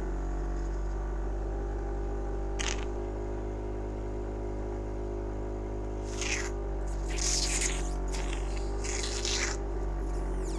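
Airway suction at a tracheostomy: a machine hums steadily while short, irregular hissing, slurping bursts of suction pull phlegm from above the tube's cuff, one brief burst early on and several close together in the second half.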